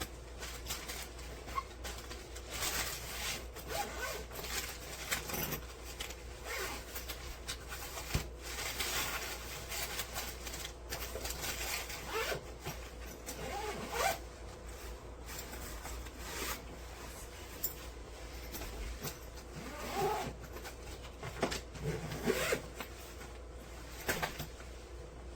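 Zipper on a packed hardside carry-on suitcase being pulled in repeated short runs, with rustling and handling knocks as the bag is closed.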